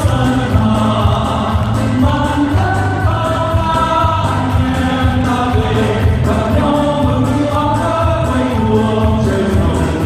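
Music: a choir of voices singing a song over steady instrumental accompaniment.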